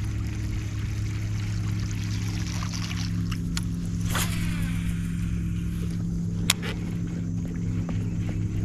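Boat motor running steadily with an even hum, and a sharp click about six and a half seconds in.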